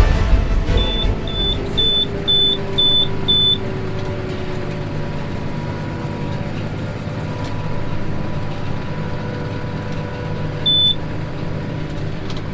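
Farm machine's engine running steadily while an electronic warning beeper sounds six times, about twice a second, then once more near the end.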